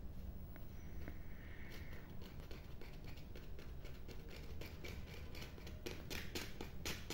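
Crinkly clicks and scratches from an inflatable plastic fish toy being pressed and rubbed against biscuits, coming faster and louder in the second half.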